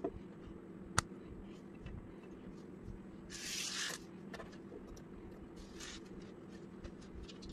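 Plastic LEGO bricks being handled: one sharp click about a second in, then a scraping rustle as loose pieces are slid across the tabletop, with a second shorter scrape and a few light taps, over a faint steady hum.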